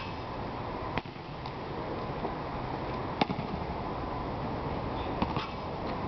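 A basketball knocking sharply as it hits the hoop and the asphalt court: once about a second in, a louder knock near the middle, and two lighter ones near the end, over a steady rush of outdoor background noise.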